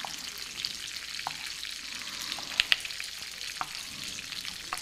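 Shrimp, spigarello greens and cherry tomatoes sizzling in olive oil in a skillet, a steady hiss. Over it come a few sharp knife taps on a plastic cutting board as cherry tomatoes are halved, two quick ones just past the middle being the loudest.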